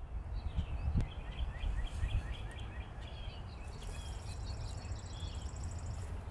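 Outdoor birdsong: a quick run of short repeated chirps, then scattered calls, with a high, rapid buzzing trill in the middle, over a steady low rumble.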